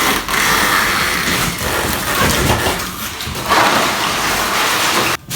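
Loud crinkling and rustling of the new fridge's packaging being pulled off and handled, cutting off abruptly near the end.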